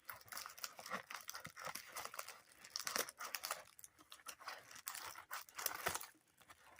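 A mailing envelope being torn open and handled: irregular tearing and paper crinkling, with a short pause near the end.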